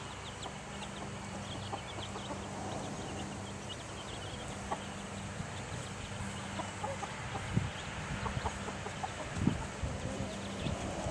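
Chickens clucking, with many short, high peeping chirps throughout. A few low thumps come in the last few seconds.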